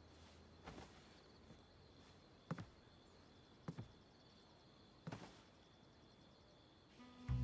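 Near silence with four soft taps spread a second or two apart over a faint steady high chirr. A low bowed-string music cue comes in at the very end.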